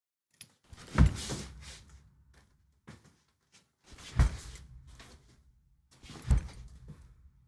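Three heavy thuds, about a second in, about four seconds in and about six seconds in, each trailing off in a low rumble.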